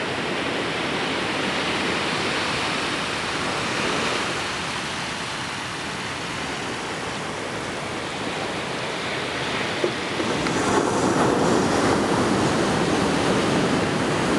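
Ocean surf: waves breaking offshore and foamy water washing up over the sand in a continuous rush, swelling louder about ten seconds in.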